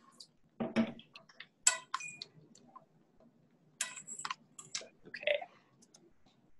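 Scattered clicks and light knocks, with a heavier thump just under a second in and a cluster of sharper clicks around four seconds in.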